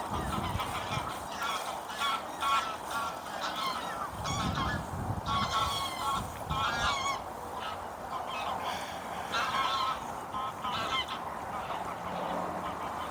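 A flock of geese honking, with many short calls overlapping and repeating throughout.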